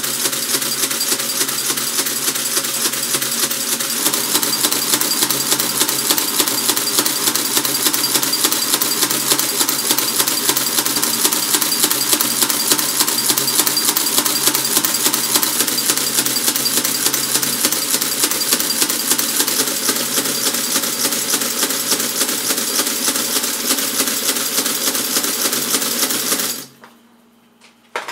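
Precisa electric adding machine running: its mechanism of levers and springs clatters in a rapid, steady stream of clicks over a low motor hum. It stops abruptly a little before the end, followed by a single click.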